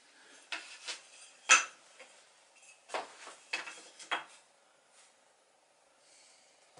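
A ruler and a carpenter's square set down and moved on a plywood board on a wooden workbench: a series of sharp clacks and knocks, the loudest about a second and a half in, then a cluster of them about three to four seconds in.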